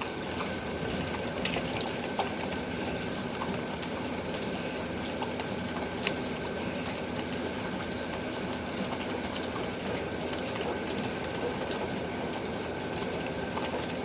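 Steady rain, an even hiss with a few light ticks scattered through it.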